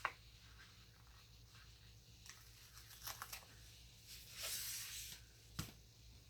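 Quiet handling of paper and sticker sheets: faint rustles, a short tearing swish a little past the middle, and a couple of small sharp taps, one at the start and one near the end.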